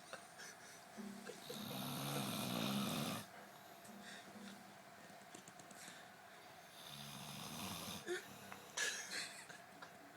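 A sleeper snoring: a long snore of nearly two seconds beginning about one and a half seconds in, then a softer one about seven seconds in, with a few short clicks near the end.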